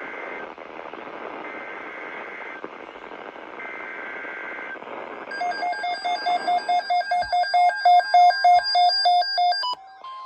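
NOAA Weather Radio over static sending an alert's digital SAME header: three bursts of warbling data tones, each about a second long. A weather alert radio then sounds its alarm in rapid, loud beeps for about four seconds, cutting off near the end as the steady alert tone starts.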